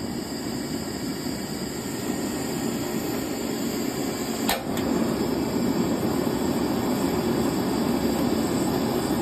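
Both propane burners of a Coleman two-burner camp stove burning on full, a steady low rush of gas flame. About halfway through there is a short click and the rush grows a little louder.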